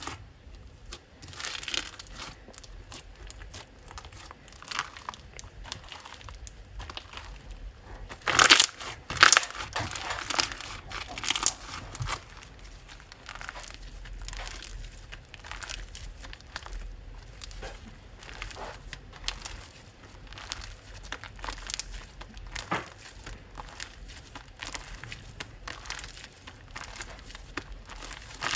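Hands squishing and stretching slime, giving irregular sticky crackles and clicks, with a louder run of pops about eight to ten seconds in.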